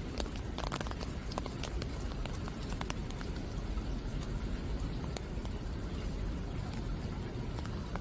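Steady rain falling, with scattered single drops striking close by, more of them in the first few seconds.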